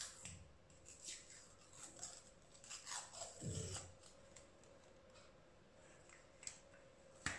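Faint clicks and scrapes from a small plastic jar of face cream being handled, scattered through the first four seconds or so, with one sharper click near the end.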